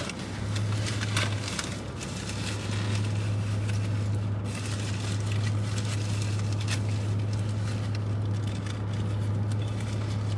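Steady low hum with irregular crackling and rustling of food wrappers while people eat.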